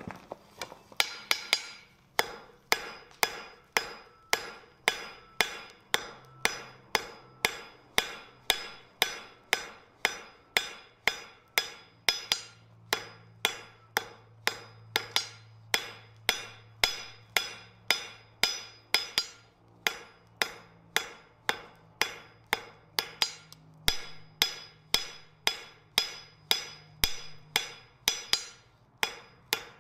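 Hand forging hammer striking a red-hot steel bar on an anvil in a steady rhythm, about two blows a second, each blow ringing brightly.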